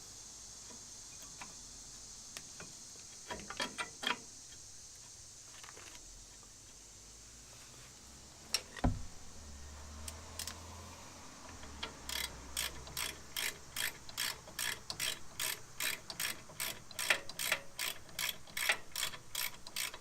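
Hand socket ratchet clicking as a brake caliper bolt is run in: a few scattered clicks and a single knock, then about eight seconds of quick, even clicking, roughly four clicks a second, beginning a little past halfway.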